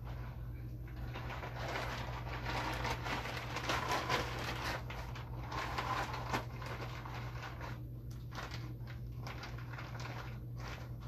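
Rustling and crinkling of a shower cap as it is pulled and adjusted over the head, busiest in the middle, over a steady low hum.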